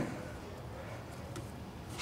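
Low, steady workshop background with a few faint light clicks from metal parts being handled inside the open rear differential.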